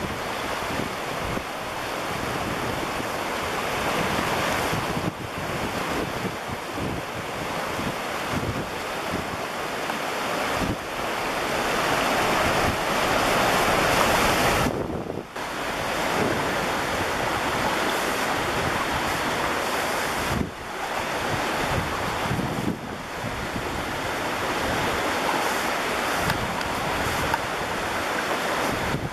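Floodwater of the River Thames rushing through weir gates, a steady loud rush of churning water, with wind buffeting the microphone.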